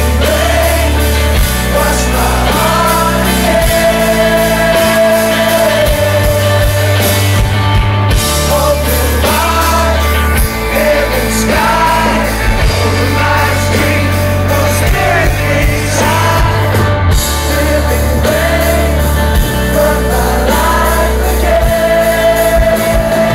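Live worship rock band playing a song: a male lead vocal sings the melody over acoustic and electric guitars, bass and drums. Loud and continuous.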